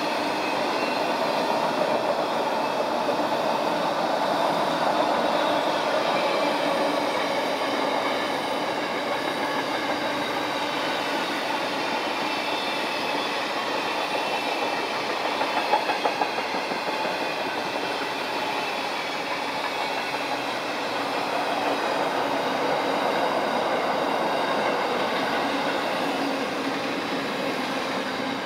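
Freight train of empty flat wagons passing at speed close by: a steady rush of steel wheels on the rails, with a short run of louder clacks just past halfway.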